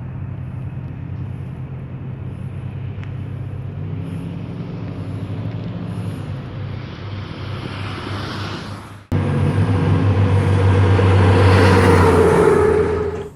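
A car engine running with road noise, its low hum rising slightly in pitch partway through. About nine seconds in it jumps abruptly to a louder stretch of engine and rushing road noise, which stops suddenly near the end.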